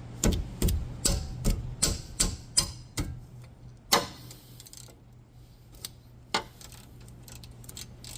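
Ratchet wrench with a 12 mm socket clicking stroke after stroke on a rear brake caliper bolt. The clicks come quickly at first, then thin out to a few scattered ones. The bolt keeps spinning instead of backing out.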